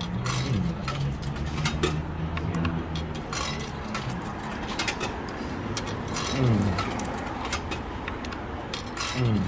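Quarters being fed into a vending machine's coin slot: a run of short metallic clinks and clicks, over a low steady hum.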